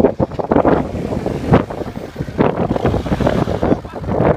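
Off-road 4x4's engine running as the vehicle crawls through a deep muddy rut, with wind buffeting the microphone.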